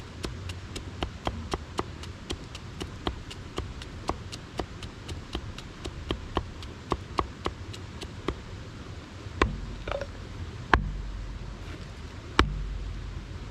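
A hatchet knocking on wood on a tree stump in quick light strokes, about three to four a second, as small wood is chopped. Near the end come three heavier single chops, each followed by a short low rumble.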